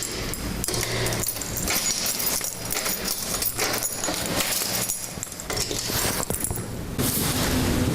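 Guinea pig rustling and scrabbling: a run of short, irregular scratchy noises. About seven seconds in they give way to a steady rushing noise.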